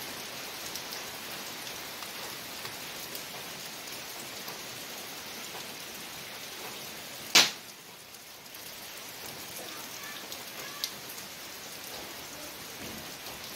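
Rain falling steadily, a continuous hiss with a patter of small drops. A single sharp knock comes about halfway through, with a smaller one a few seconds later.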